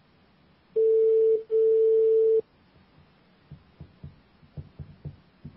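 Telephone ringback tone heard down a phone line: one steady beep about a second and a half long, with a tiny dropout partway through, while the call rings out. Then a run of faint, uneven clicks on the line.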